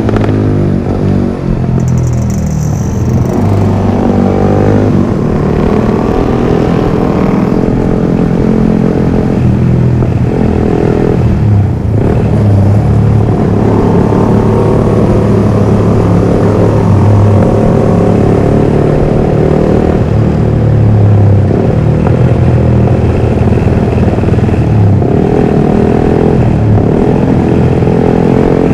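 Yamaha R15 V3's single-cylinder engine breathing through a Villan MP1 aftermarket exhaust, revving repeatedly with its pitch climbing and falling. There are brief dips in loudness about a second and a half in and again near twelve seconds.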